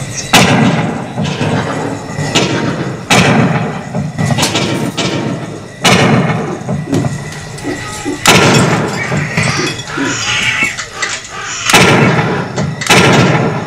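Coin-operated shooting-gallery sound effects: about six sudden bangs a few seconds apart, each followed by a jumble of effects with snatches of music and voice, as targets in a graveyard diorama are hit.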